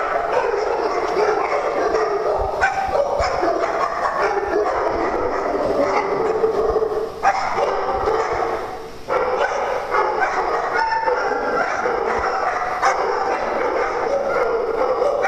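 Many dogs barking and yipping at once in an unbroken, overlapping din, with a brief lull about nine seconds in.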